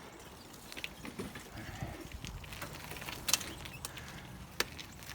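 Irregular light clicks and knocks, the sharpest a little over three seconds in and another near the end.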